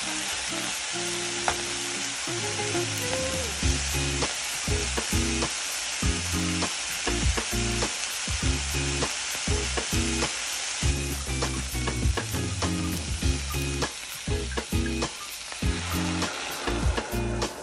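Sausage slices and mushrooms frying in a pot, sizzling steadily, with the clicks and scrapes of a spoon stirring against the pot. Background music with a steady bass beat plays underneath.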